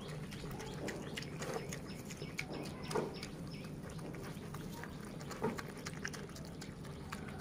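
Pig eating noodles close up: a steady run of quick wet chewing and smacking clicks, with a few short louder grunts.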